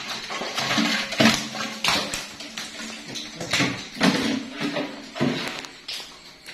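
Irregular clattering knocks on metal as fish are tipped from a bucket into a stainless steel colander and basin, some knocks ringing briefly.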